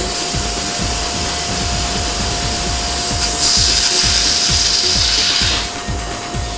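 Mazak OPTIPLEX 3015 CO2 laser cutting machine running: a steady hiss with a thin steady whine, the hiss growing louder from about three to five and a half seconds in. It plays under background music with a steady beat.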